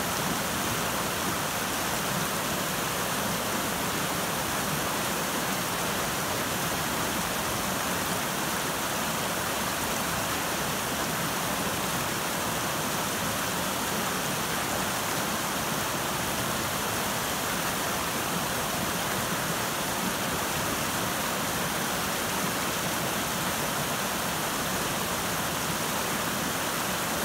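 River rapids rushing over boulders: a steady, unbroken rush of water.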